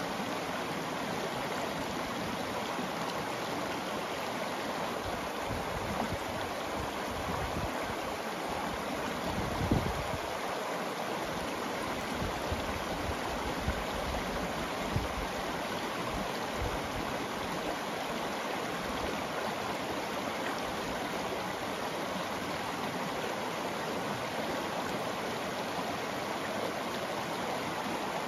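Shallow river running over rocks and gravel, a steady rushing and babbling of water through a small riffle. A few brief low bumps cut in, the strongest about ten seconds in.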